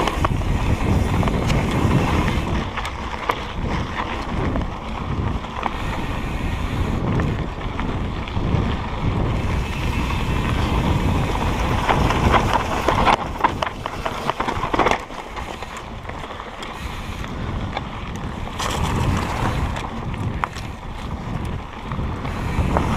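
Wind buffeting the microphone over a steady rush, with scattered clicks and rattles throughout.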